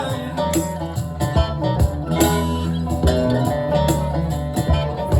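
Live band playing an instrumental passage: plucked guitar over a sustained bass line, with frequent sharp percussion hits.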